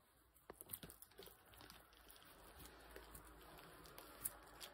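Faint crunching and rustling of guinea pigs chewing and tearing red leaves, a scatter of small clicks with the sharpest one near the end.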